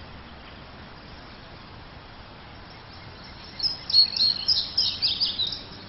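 Steady low background hiss, then about three and a half seconds in a rapid cluster of high-pitched bird chirps for about two seconds.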